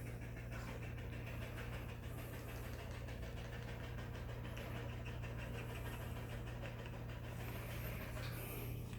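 Dogs panting hard and steadily because they are overheated, over a steady low hum.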